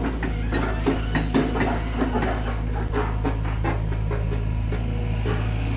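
A Hitachi EX200 long-arm excavator's diesel engine running steadily, with irregular soft clicks and rustles of rubber boots and hands moving in wet mud and grass.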